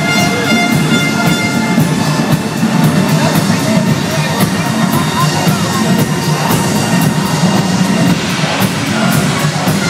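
Live rock band playing amplified music: a drum kit keeps a steady beat under keyboards, with held synth notes in the first couple of seconds.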